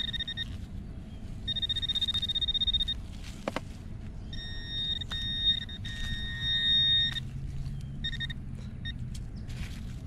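Handheld metal-detector pinpointer sounding its steady high alert tone in on-off stretches, about four in all, as it is pushed into the hole over a metal target, with a single sharp click partway through.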